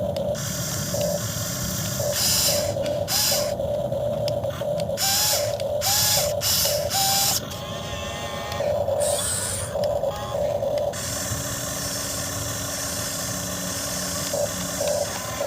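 RC excavator's electric motors and gears whining steadily, the pitch briefly rising each time the arm or boom moves. Short bursts of hiss come in the first half.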